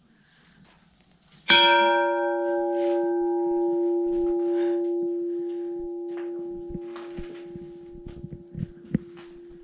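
A small church bell hung in a stone belfry, struck once by its clapper on a pull of the hand cord about a second and a half in. Its tone, several pitches together, rings on and slowly fades.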